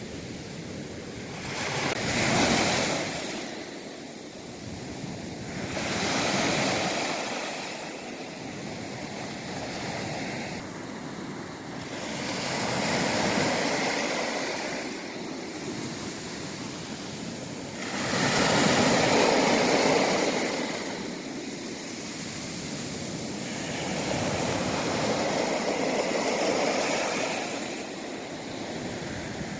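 Sea waves breaking and washing up the shore, the surf rising and falling in five swells a few seconds apart, the loudest about two-thirds of the way through.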